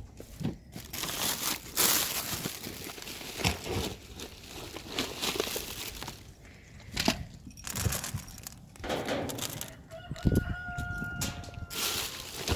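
Rustling and scraping of dry pet food being scooped out of its bag with a bowl, with a rooster crowing once about ten seconds in.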